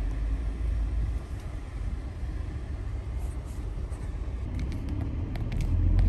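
Low rumble of a car's engine and tyres heard from inside the cabin while driving slowly, growing louder near the end, with a few light clicks.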